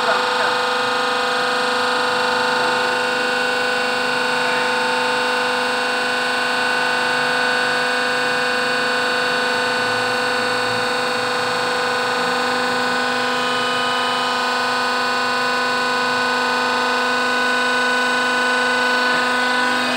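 Electric motor and hydraulic pump of a cardboard baling press running steadily as the ram slowly extends downward, a constant whine made of several held tones.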